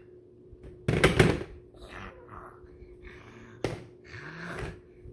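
A small boy making silly noises with his mouth and breath: a loud burst about a second in, then a string of shorter breathy huffs and sounds.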